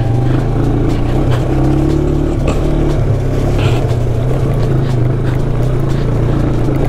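Motorcycle engine running steadily at low revs while rolling down a steep trail, with a few light knocks.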